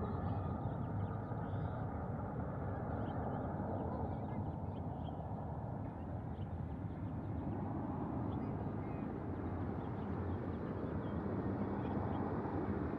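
Sikorsky S-64 Skycrane helicopter flying at a distance: a steady low rumble of its rotors and engines.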